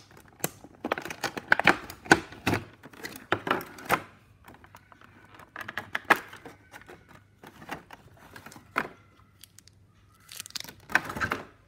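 Stiff clear plastic packaging tray crackling and clicking as a metal model airliner is pried out of it, in several spells: a busy stretch at the start, shorter ones midway and near the end.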